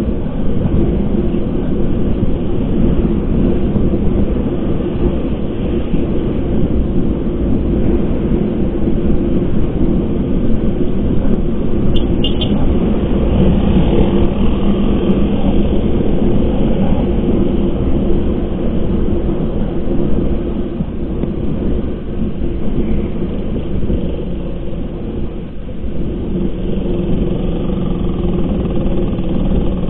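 Motorcycle engine running steadily while riding, under heavy wind rumble on the microphone.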